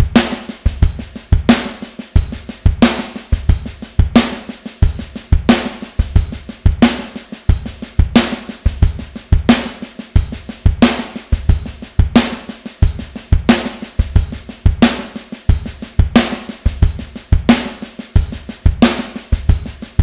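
Drum groove played on an electronic drum kit: a steady beat of hi-hat, bass drum and accented snare, with many quiet snare ghost notes in between and some variation in the bass drum pattern.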